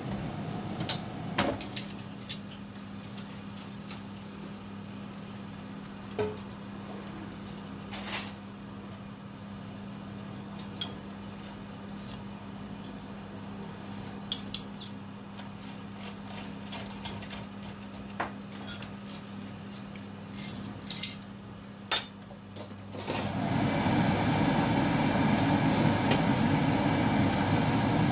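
Kitchen sounds at a stove while garlic goes into a frying pan of oil: scattered light clinks and taps over a steady low hum. About five seconds before the end, a louder steady rushing noise sets in.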